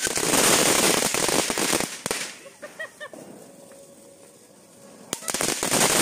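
Diwali firecrackers crackling and fizzing in a dense spray of pops. The crackle dies down about two seconds in; a sharp bang about five seconds in is followed by more dense crackling.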